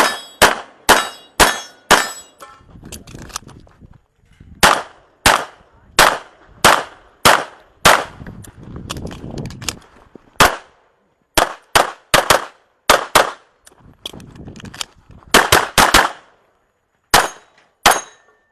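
A competition handgun fired in quick runs of shots, roughly two a second, with pauses between runs. Some shots are followed by the metallic clang and ring of steel targets being hit, and a lower rustling fills the pauses while the shooter moves between positions.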